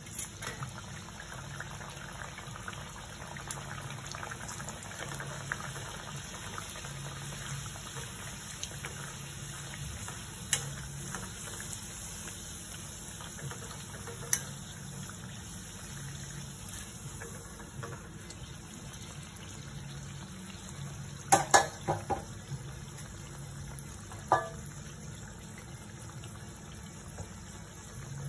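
Oil sizzling and bubbling steadily as a luchi deep-fries in a kadai. A few sharp clicks and knocks break in, the loudest a quick cluster of them about three-quarters of the way through.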